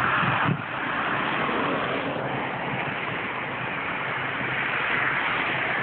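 Wind rushing over the camera's microphone in a blizzard, a steady roar-like hiss with a brief dip about half a second in.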